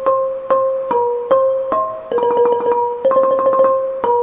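Interlude music: an electric piano or keyboard playing an even run of single struck notes, roughly one every half second, over held tones that shift in pitch.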